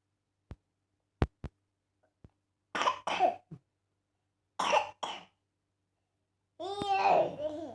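A child with a cold coughing: two quick double coughs, then a longer cough with voice in it near the end, after a few sharp clicks in the first two seconds.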